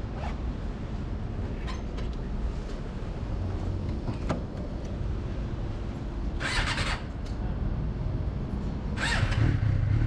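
Motorcycle engine running steadily with a low rumble, and two short hissing noises, about six and a half and nine seconds in.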